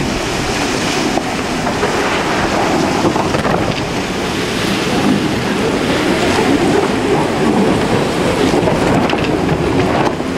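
Loud, steady rush of water and wind aboard the racing maxi trimaran Groupama 3 under sail, deepest in the low range.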